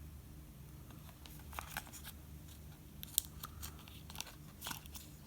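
Faint, scattered small clicks and light taps from hands handling an iPhone 5s and its battery, over a low steady hum.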